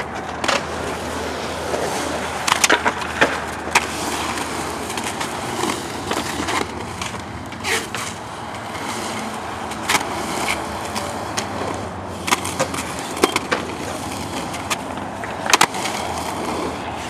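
Roller skate wheels rolling over the concrete of a skatepark bowl, a steady rolling rush broken every few seconds by sharp clacks and knocks of the skates against the concrete.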